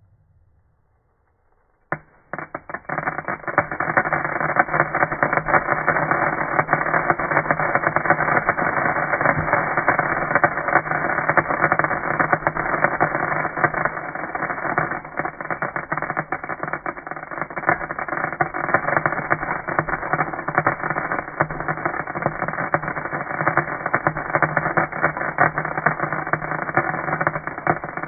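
Homemade fireworks sound effect made from natural and recycled materials: a dense, continuous crackling hiss like sparkling fireworks, starting suddenly about two seconds in.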